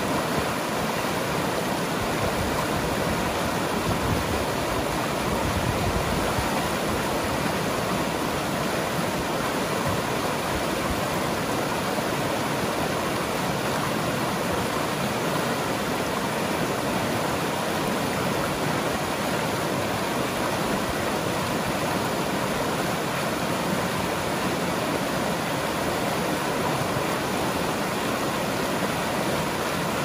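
A shallow river rushing fast over rapids, its white water making a steady, even rushing sound.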